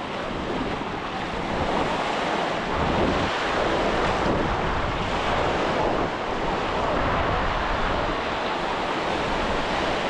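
Ocean surf washing and breaking on a sandy beach, a steady wash that grows louder about three seconds in, with wind rumbling on the microphone.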